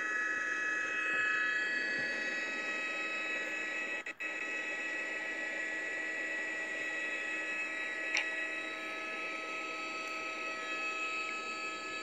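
Steady high-pitched whine of a helicopter's turbine engine over a hiss, with a brief dropout about four seconds in and a short click about eight seconds in.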